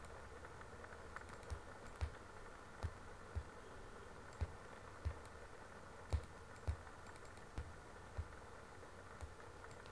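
Computer mouse clicking about a dozen times at irregular intervals, each a short sharp click with a dull knock, over a steady faint hiss.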